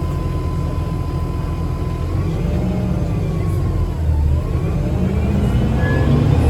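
2009 Gillig BRT 40' transit bus with a Voith transmission, heard from inside while under way: a steady low drivetrain rumble with a thin whine that falls in pitch about four seconds in, then climbs again as the bus picks up speed.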